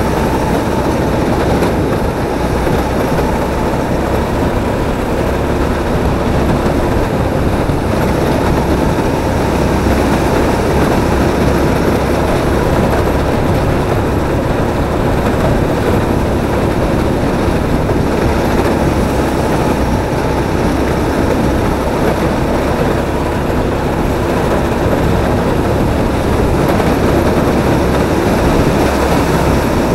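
Drift kart running at speed around the track, heard from on board: a steady, dense motor-and-rolling noise that hardly changes in level.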